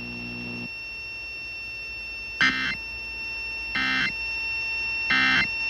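Three short EAS end-of-message data bursts (the SAME 'NNNN' code), harsh digital buzzes each about a third of a second long and about 1.4 s apart, signalling the end of the flash flood warning. A low buzz cuts off within the first second, and a faint steady high tone runs underneath.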